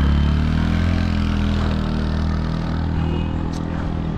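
Motor vehicle engine, most likely a motorcycle being ridden, running steadily and easing off slightly in pitch and loudness.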